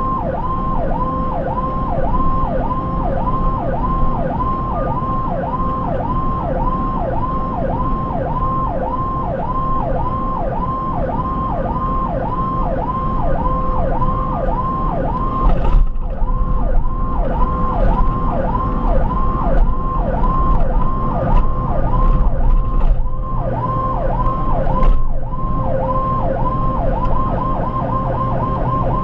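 Ambulance electronic siren heard from inside the cab, sweeping up and down in a yelp a little over twice a second and switching to a faster yelp near the end, over engine and road rumble.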